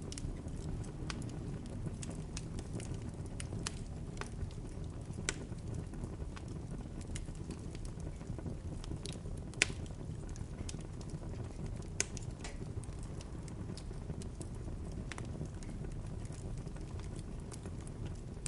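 Bonfire burning: a steady low rush with scattered sharp crackles and pops from the burning wood, the two loudest pops about nine and a half and twelve seconds in.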